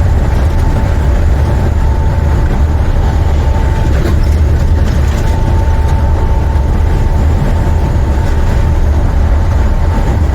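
Inside the cab of a semi truck on the road: the International's MaxxForce 13 diesel engine running steadily under way, a constant deep rumble with a thin steady whine above it.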